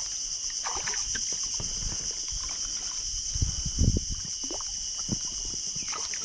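Water splashing and sloshing as a hooked striped eel catfish thrashes and is scooped into a landing net at the side of an inflatable boat, with a few louder low thuds about three and a half to four seconds in. A steady high insect drone runs underneath.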